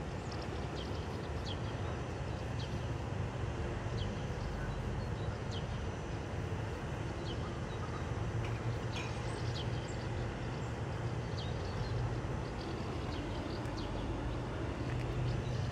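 Outdoor background ambience: a steady low rumble with scattered faint, short high chirps.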